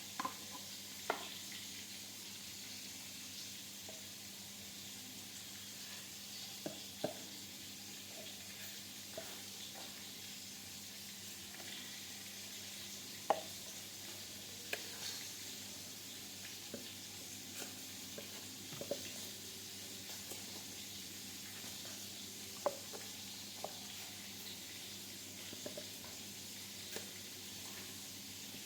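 Food sizzling steadily in hot oil in a pan, with occasional sharp taps and clinks of a utensil against the pan.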